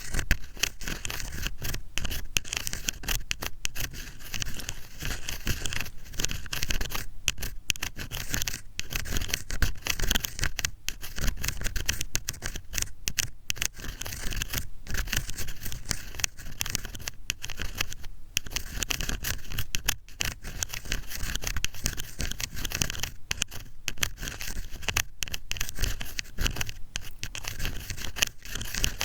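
Ear pick scraping and scratching close against a microphone as ASMR ear cleaning: a steady run of rapid, fine scratches with soft low rubbing underneath.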